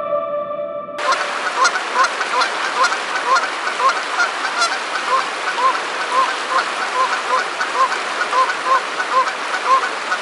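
Canada geese honking over and over, about two honks a second, over the steady rush of a river. For the first second ambient music plays, and it cuts off abruptly when the honking starts.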